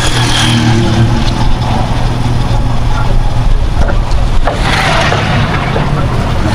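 A motor vehicle's engine running steadily with road and traffic noise, with a louder rush of passing traffic about five seconds in.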